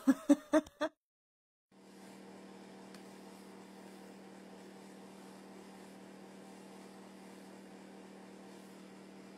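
Steady faint electrical hum with light hiss, one low tone and its overtones held level, starting just under two seconds in after a brief silence. Before it, a few short bursts of a voice cut off within the first second.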